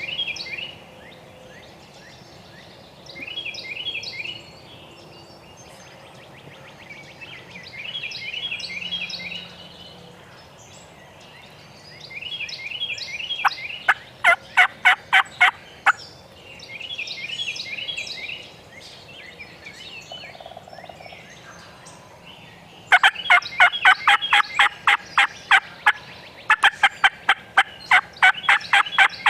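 A wild turkey gobbler gobbles about every four seconds. About fourteen seconds in, and twice more near the end, there are runs of sharp turkey yelps, about five notes a second, louder than the gobbles.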